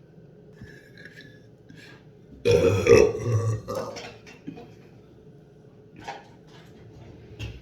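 A single loud burp lasting just over a second, about two and a half seconds in.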